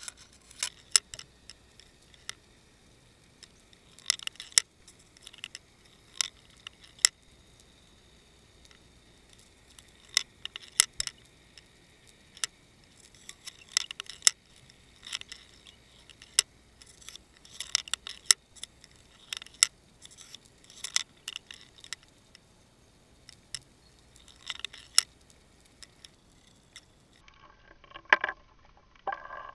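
Scattered sharp clicks and ticks, often in short clusters every second or two, picked up underwater by a submerged fishing camera over a faint hiss. Near the end the hiss stops and a duller clatter takes over.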